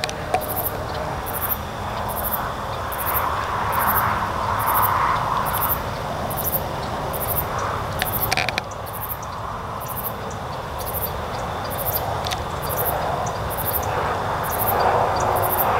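An insect chirping in a steady rhythm, about two short, very high chirps a second, over a steady low rumble that swells louder toward the end.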